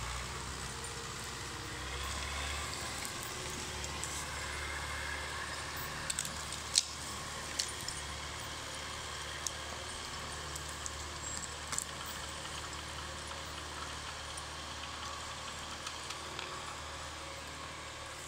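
LKT 80 forestry skidder's diesel engine running steadily as it drags a load of logs away, slowly fading toward the end. A few sharp cracks cut through, the loudest about seven seconds in.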